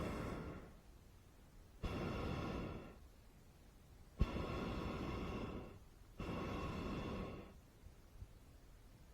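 Hot air balloon propane burner firing in short blasts, each opening with a click of the valve and a rush of flame. The tail of one blast fades near the start, and three more of about a second and a half each follow, starting about two, four and six seconds in.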